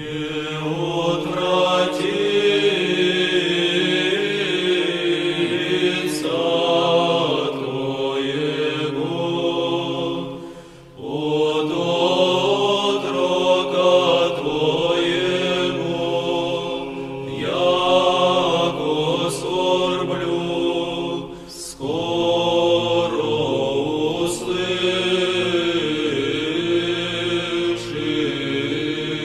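Slow unaccompanied chant by several voices over a steady held drone note, sung in long phrases with two short breaks between them.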